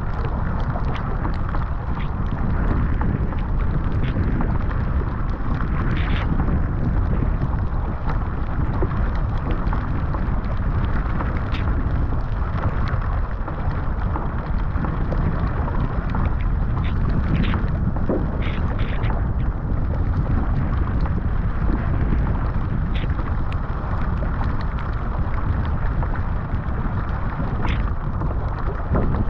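Steady wind buffeting the microphone of a camera on a moving surfski, over rushing water and the splash of the paddle blade. A few short ticks now and then, from water and rain hitting the deck and lens.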